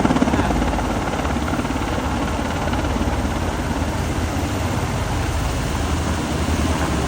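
Army UH-60M Black Hawk helicopter over the field, its rotors beating steadily with a fast low pulse under an even turbine-and-wind rush.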